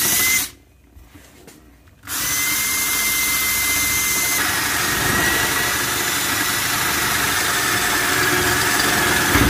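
Ridgid cordless drill running, first in a brief burst, then steadily for about eight seconds with a constant whine that steps slightly lower in pitch partway through.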